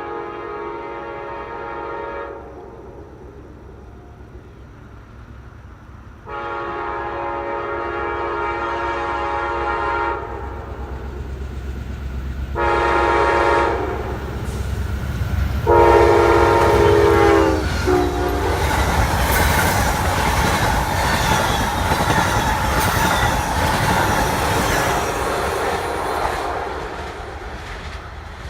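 Train horn sounding the grade-crossing signal: two long blasts, a short one and a final long one that drops in pitch as the train reaches the microphone. The train then passes with a loud steady rumble and rail clatter that fades away near the end.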